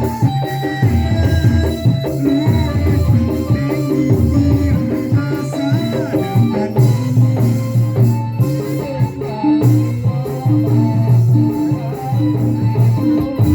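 Live band music: a steady beat on drums and shaker or tambourine percussion over a strong bass line, with melodic instruments playing above.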